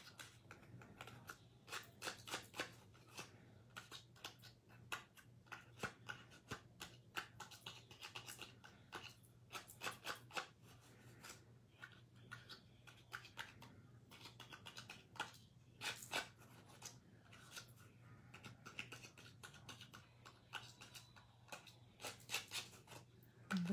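A metal pick poking the tiny cut-out bits out of a green cardstock doily die cut, making irregular light clicks and paper taps, over a faint steady hum. The pieces have to be pushed out by hand because worn die-cutting plates leave them not fully cut.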